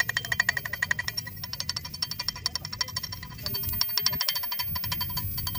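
Background music with a fast, even ticking beat and sustained high notes.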